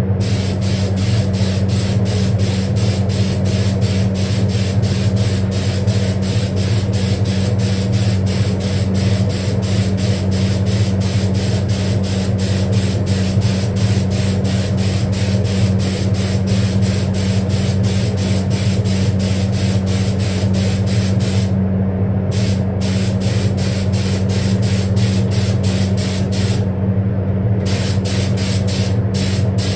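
Spray booth extraction fan running with a steady low hum, under the hiss of an air spray gun spraying paint. The spray hiss cuts out briefly twice in the second half and flickers near the end while the fan keeps running.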